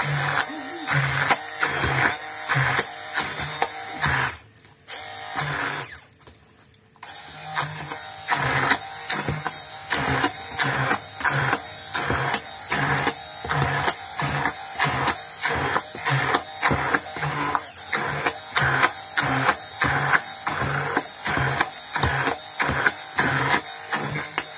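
Handheld immersion blender puréeing thick cooked broad-bean mash into a smooth paste, its motor surging in regular pulses about twice a second as the blade works through the mash. It stops for about three seconds near the start, then runs on.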